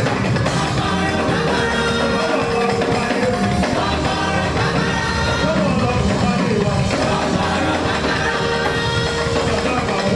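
Church choir singing a praise song in several voices over a steady band accompaniment.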